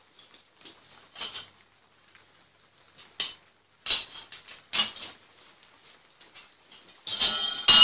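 Scattered light metallic clinks and scrapes, a few at a time, then a louder, denser run of clattering with some ringing starting about a second before the end, typical of hand tools and metal parts handled during car repair work.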